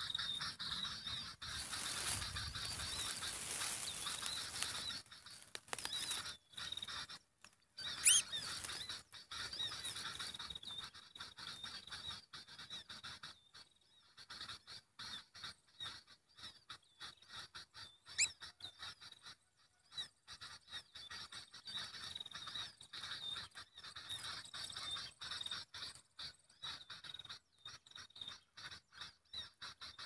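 Outdoor bird and insect sounds: a steady high insect-like drone with two sharp rising whistled bird calls, a loud one about eight seconds in and a fainter one later. Rapid rustling clicks throughout as a small bird stuck on a lime stick flutters and is handled.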